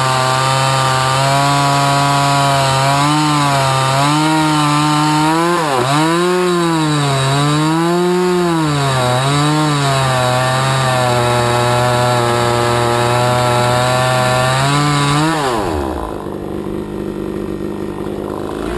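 Radley 50cc Chinese-clone two-stroke chainsaw cutting into a pine log at high revs, the engine pitch dipping several times as the chain bogs in the cut. About three-quarters of the way through, the throttle is let off and the engine falls back to idle.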